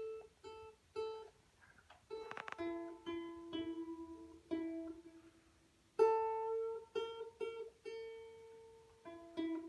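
Balalaika playing: separate plucked notes, with a quick passage of rapid tremolo plucking about two seconds in.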